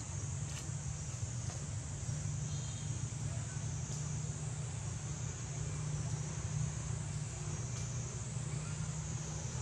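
Steady outdoor background noise: a low rumble with a steady high-pitched hiss over it and a few faint clicks.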